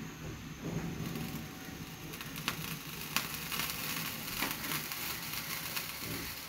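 Aluminium pan heating on a gas stove, faint crackling and sizzling as the last water droplets in it boil off, with scattered small clicks over a steady hiss.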